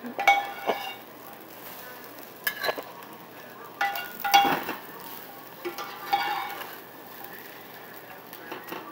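Metal spatula scraping and clinking against a skillet and a ceramic plate while serving scrambled egg with fried corn tortilla pieces: several clusters of knocks, each with a short ring, over a faint steady sizzle from the hot pan.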